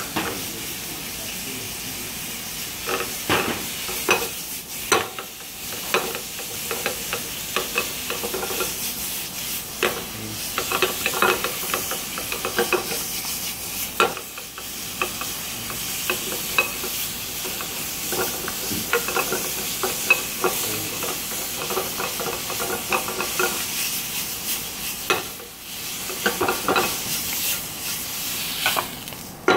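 Minced meat sizzling as it browns in a little oil in a nonstick frying pan, with a wooden spatula scraping and knocking against the pan again and again.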